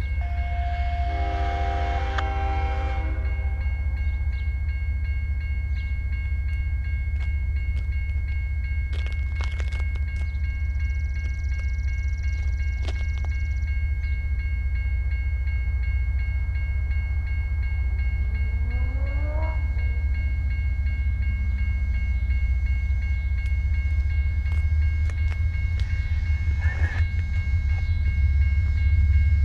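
Horn of an approaching Norfolk Southern freight locomotive sounding a short multi-note chord in the distance about a second in, over a low steady rumble. A rising whine comes about two-thirds of the way through, and the rumble grows louder near the end as the train draws closer.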